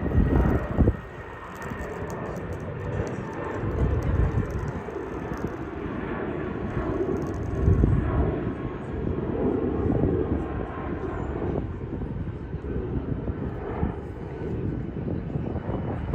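Jet airliner engines rumbling, a loud, uneven roar that swells and eases without ever stopping.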